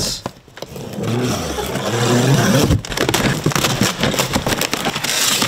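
Corrugated cardboard shipping box being torn open and its cardboard packing pulled out: dense tearing, scraping and rustling of cardboard with many sharp crackles.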